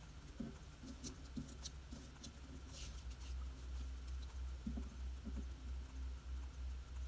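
Paper sticker sheets being handled and laid down on a tabletop: a few light rustles and taps about one to three seconds in, with fainter ones later, over a low background hum.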